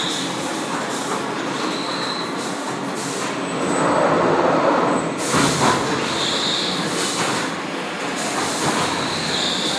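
Automatic textile screen-printing machine running: a steady mechanical clatter and rumble as its pallets move round, louder for a second or two in the middle, with a short high squeak every few seconds.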